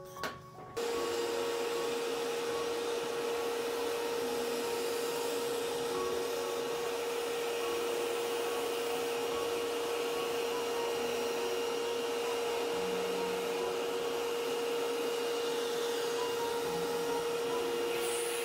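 Vacuum cleaner running with a steady hum as its nozzle sucks toner dirt out of a copier's drum unit. It starts abruptly about a second in.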